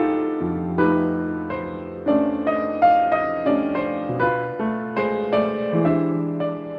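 Solo piano playing a prelude: single notes and chords struck about twice a second, each ringing and fading, over held bass notes.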